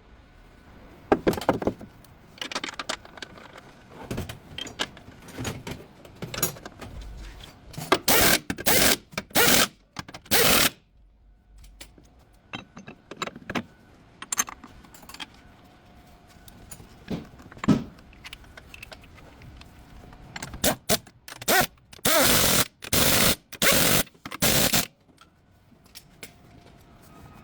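Metal tools clinking and scraping during an engine mount replacement, with two runs of short, loud bursts, one about 8 seconds in and another about 22 seconds in.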